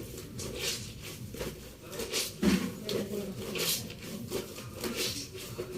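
Clothes being scrubbed by hand in soapy water, wet fabric rubbed against fabric in a run of repeated, uneven swishes.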